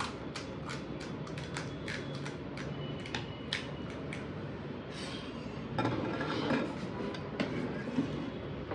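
Crisp fried puri shells crackling and snapping in a rapid series of sharp clicks as they are poked open by hand, with a metal spoon clinking against a steel bowl.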